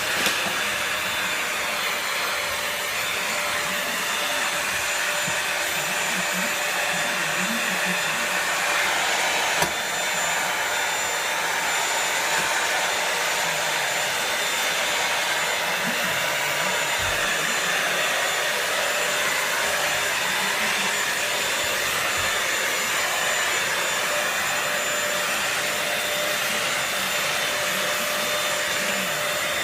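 Electric vacuum cleaner running steadily: a continuous rush of air with a steady high motor whine. There is a short click about ten seconds in.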